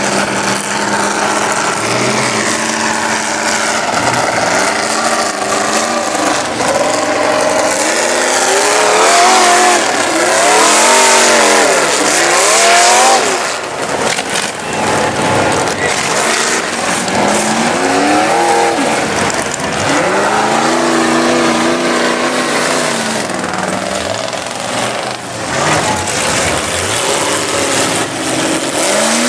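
Lifted mud-bog pickup trucks' engines revving hard under full throttle, the pitch sweeping up and dropping back again and again as the trucks power through the mud. The revving is loudest, with a heavy hiss, around the middle.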